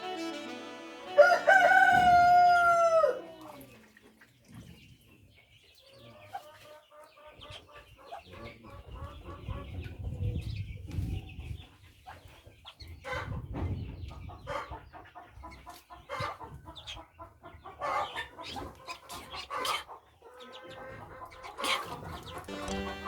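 Chickens: a rooster crows once, loud and about two seconds long, about a second in, followed by hens clucking and calling on and off.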